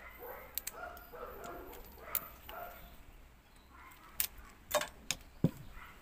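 Sharp clicks and taps of small microwave high-voltage parts being handled, most of them in the second half, over faint high-pitched whimpering calls in the background during the first half.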